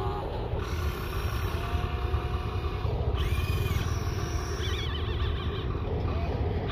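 Steady low outdoor rumble with faint wavering chirps above it, changing abruptly at several cuts.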